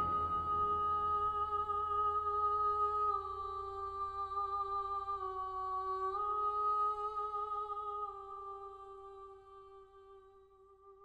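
Music: a soft single melodic line of long held notes, stepping slightly down and back up, then fading away near the end.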